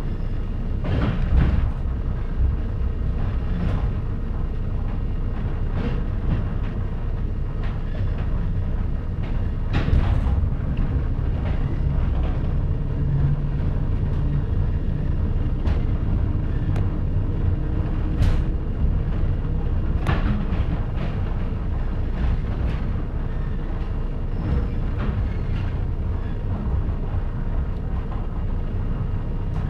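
EN57 electric multiple unit running, heard from inside the passenger carriage: a steady low rumble of wheels on track, with scattered sharp clacks as the wheels pass over rail joints and points. A brief low hum from the drive rises and fades about halfway through.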